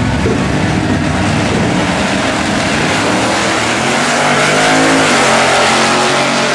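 Drag-racing cars, a 1968 Pontiac GTO's V8 among them, running at full throttle down the strip, the engine pitch climbing about halfway through.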